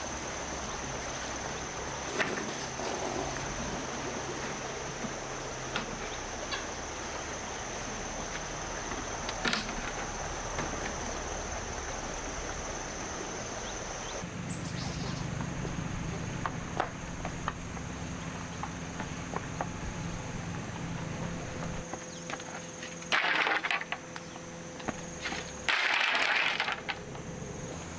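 Outdoor rural ambience: a steady high-pitched insect drone, scattered clicks and rustles, and two short, loud, noisy bursts near the end.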